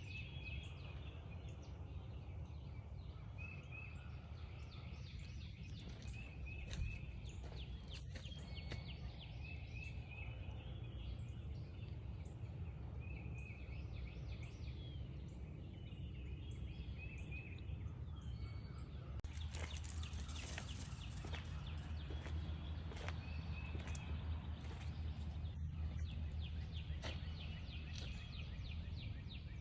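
Outdoor morning ambience: birds calling, with one short chirping phrase repeated every couple of seconds, over a steady low rumble. A brief rush of noise comes about twenty seconds in.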